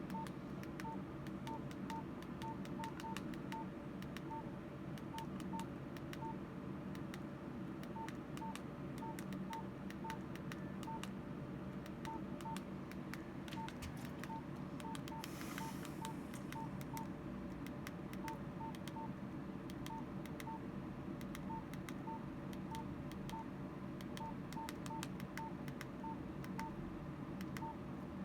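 Nokia 105 keypad tones: many short, single-pitch beeps, one per key press, coming at an uneven pace, some in quick runs, along with faint clicks of the keys over a steady low hum.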